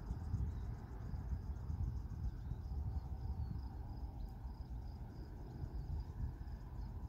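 Crickets chirping in a high, steady, rapid rhythm over a louder, uneven low rumble.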